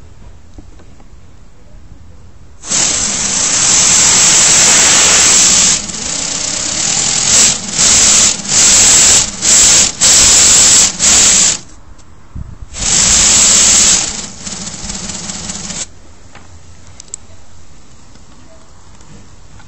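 Lego Technic V8 engine model running on compressed air, with a loud hiss of air. It starts about three seconds in, cuts out and back in several times in the middle, and stops a few seconds before the end.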